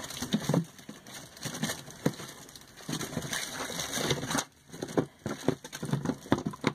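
Clear plastic packaging bags crinkling and rustling in short, irregular spells as products are handled.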